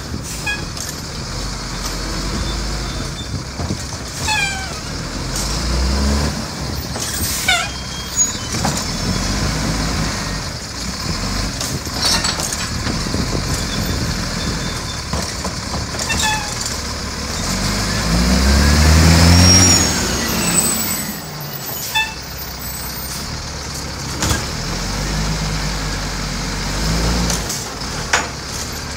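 Diesel garbage truck engine running, revving up for about two seconds a little past the middle, the loudest part. Short falling squeals and sharp clicks come along the way.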